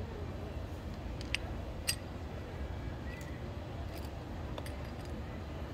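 Metal scooter CVT parts (variator, ramp plate, rollers) clinking as they are picked up and set down on asphalt: a handful of short sharp clinks, the loudest about two seconds in, over a steady low background rumble.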